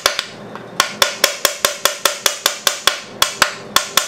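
A small hammer tapping rapidly on the lobes of a Tecumseh small engine's crankcase side cover, about six ringing metallic strikes a second in runs with two short pauses. The tapping is meant to break the cover loose from its gasket seal without tearing the gasket.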